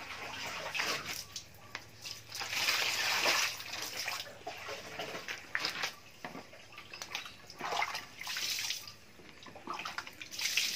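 Water poured from a plastic dipper and splashing in several bursts, with dribbling as a dish sponge is rinsed and wrung out.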